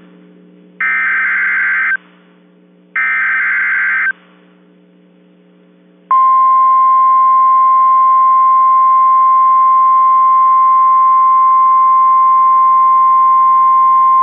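NOAA Weather Radio emergency alert: two short raspy bursts of SAME digital header data a second apart, then about two seconds later the steady single-pitch 1050 Hz warning alarm tone starts and holds.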